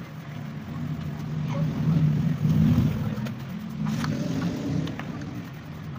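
A motor vehicle's engine passing by as a low rumble that swells to its loudest about halfway through and then fades, with a few light clicks over it.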